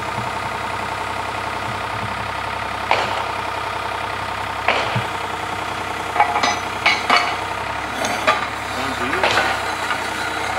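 Cable percussive drilling rig running, its engine and hydraulics droning steadily, with irregular sharp clanks every second or two from the percussion and winch gear, several close together about two-thirds of the way through.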